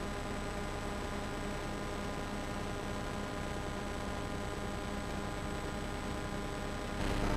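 Steady hiss with an electrical hum and buzz from the recording itself, no distinct events; the level steps up slightly at the very end.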